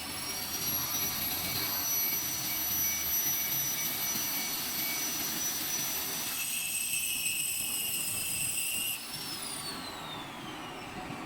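High-speed grinder running on a lathe during a grinding operation: a steady high-pitched whine over a hissing grinding noise. About nine seconds in the level drops and the whine slides steadily down in pitch as the grinder is switched off and spins down.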